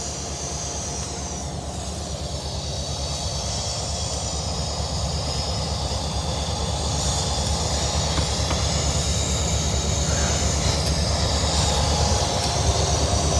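Diesel-electric locomotives idling: a steady, pulsing low rumble that grows gradually louder, with a thin high hiss above it.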